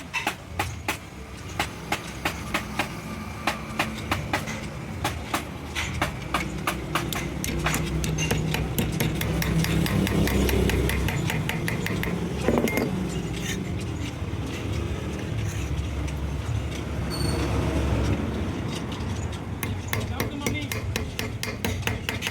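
A fast, even run of sharp knocks, about four a second, stopping about seven seconds in; after that a steady low rumble with occasional clicks.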